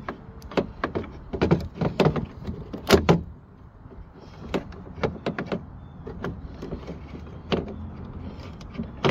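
Sharp clicks and light rattles of a Ford F-150 tailgate latch mechanism's metal linkage and plastic rod clips as it is handled and fitted back into the tailgate. The clicks come thick and fast for the first three seconds, then turn sparse and single.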